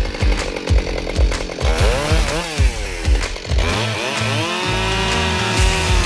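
Gasoline chainsaw revving up and down, then running at a steady high speed, over background music with a steady beat.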